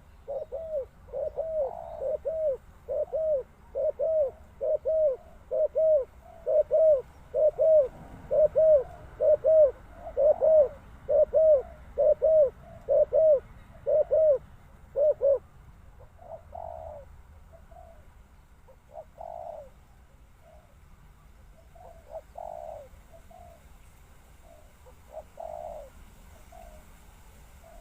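Spotted dove cooing: a fast, even run of short coos, about two a second, for about fifteen seconds, then fainter scattered coos.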